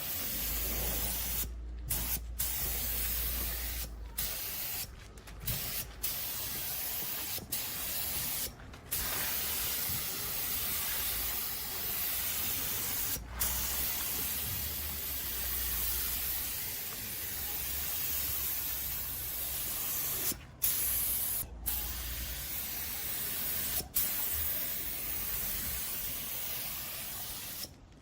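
Compressed air hissing from a hand-held air gun in long bursts, cutting off briefly a dozen or so times as the trigger is released and squeezed again.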